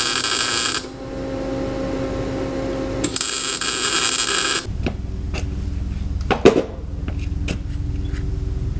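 MIG welding with a Lincoln Electric wire-feed welder: one weld stops about a second in, and a second weld of about a second and a half starts about three seconds in. Between and after the welds there is a steady hum, with a few clicks and a sharp knock at about six and a half seconds.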